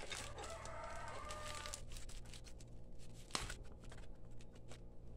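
Scissors snipping through bubble wrap, with plastic crinkling and small clicks and a sharper snap about three and a half seconds in. A rooster crows once in the background over the first two seconds.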